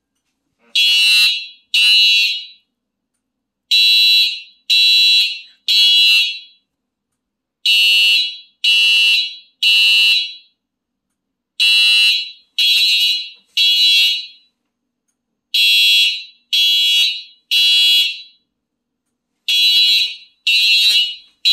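Mircom (MGC) FH-400-RR fire alarm horn sounding in the temporal-3 (Code 3) evacuation pattern: a shrill, high tone in sets of three blasts about a second apart, each set followed by a pause, repeating.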